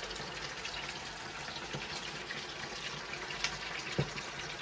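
Chicken pakodi deep-frying in oil: a steady sizzle with many small crackles. A single knock comes near the end.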